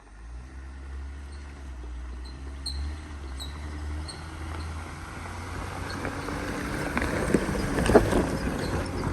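Jeep Wrangler JL on a dirt trail: a low vehicle rumble that grows louder, with a faint high squeak repeating every half second or so. Clunks and rattles come in about two-thirds of the way through, the loudest a little before the end.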